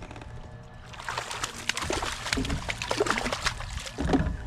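A hooked bass splashing and thrashing at the surface beside a kayak, starting about a second in, with a heavier thump about four seconds in.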